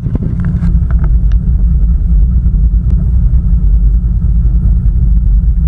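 Loud, steady low rumble aboard a small boat, with fast small swells in level. A few brief voice sounds come through in the first second and a half.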